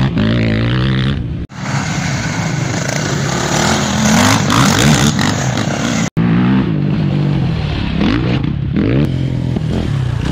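Off-road race quads' engines revving hard, their pitch rising and falling as they accelerate through dirt corners. The sound is heard in three clips joined by abrupt cuts about a second and a half in and about six seconds in.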